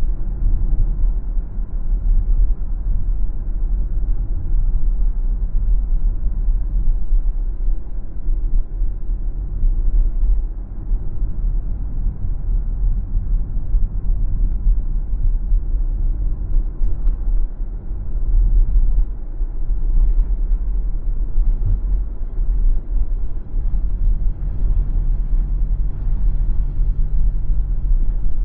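Car road noise while driving: a steady low rumble of tyres and engine, with a faint humming tone coming in near the end.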